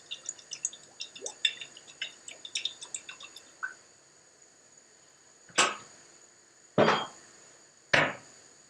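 Light, high-ringing clinks of dishes and glassware, a quick cluster over the first few seconds. Then come three louder, sharper knocks about a second apart.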